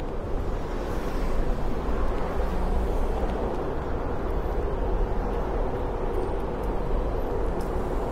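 Steady city traffic noise: cars running along a multi-lane road, a continuous low rumble with no single vehicle standing out.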